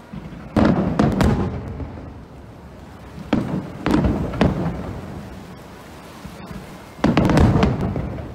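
Aerial firework shells bursting in groups of bangs, each fading out over about a second. A cluster comes about half a second in, more around four seconds, and the loudest volley about seven seconds in.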